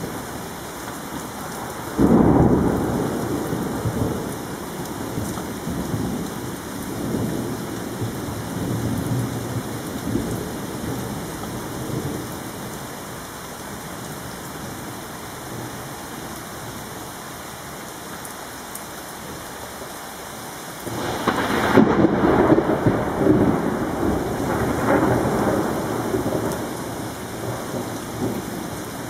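Thunder over steady rain. A sudden loud clap about two seconds in rumbles away over several seconds, and a second long rumble builds about two-thirds of the way through and rolls on for several seconds.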